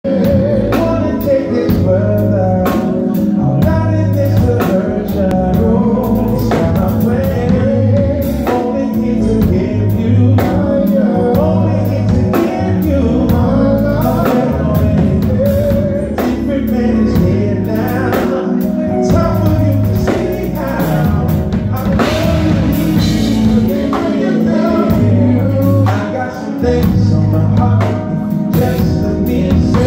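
Live R&B band playing loudly: male lead vocals over keyboards, a steady bass line and a drum kit.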